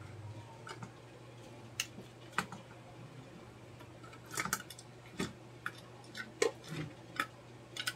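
Irregular sharp clicks and taps of a screwdriver working on the plastic housing of an electric power steering control module as it is taken apart, with a quick run of clicks about four and a half seconds in, over a steady low hum.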